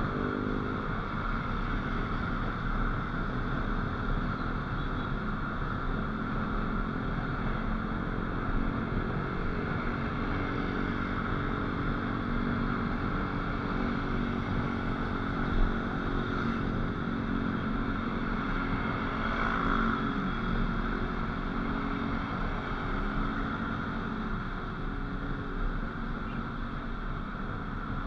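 Motorcycle engine running at road speed under a steady rush of wind and road noise, the engine note shifting a little with the throttle. A short knock about halfway through.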